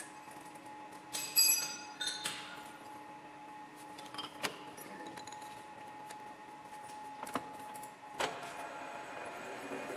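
Metal tools or parts clinking and knocking, the first two clinks ringing briefly, then single knocks, over a steady machine hum that stops about eight seconds in.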